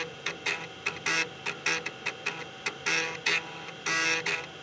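IBM PS/2 Model 30 floppy drive head stepping rapidly during the diagnostic diskette's seek test. It makes a rhythmic, beat-like run of short ticks and longer buzzing pitched notes, the longest buzzes falling about a second in, near three seconds and about four seconds in.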